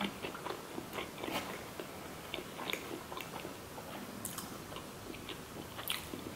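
A person chewing a mouthful of sushi close to the microphone: soft, scattered mouth clicks and smacks, with one sharper click near the end.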